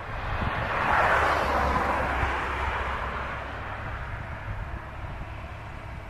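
John Deere 7530 tractor's six-cylinder diesel engine running steadily under load as it pulls a plough, a low drone. About a second in, a broad rushing noise swells up, the loudest sound here, then fades over the next few seconds.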